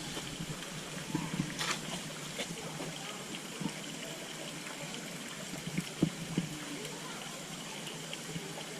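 Water trickling steadily, with a few faint knocks and a sharp click about two seconds in.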